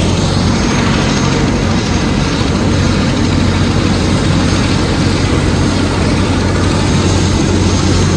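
Steady drone of an aircraft's engines heard from inside the cabin in flight, with a constant low hum under a broad rushing noise.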